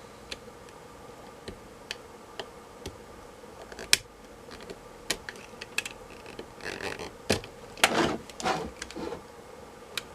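Scattered clicks and taps of a tool against a notebook battery pack's plastic casing as its label is pried off, with a sharp click about four seconds in and a run of short scrapes near the end.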